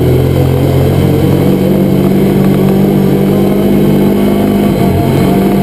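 Can-Am off-road vehicle's engine running at a steady pitch under way on a dirt track.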